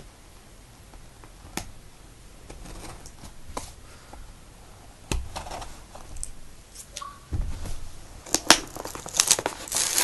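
Scissors cutting into a taped cardboard box: scattered snips, clicks and crinkling of packaging, getting louder and more frequent in the last couple of seconds.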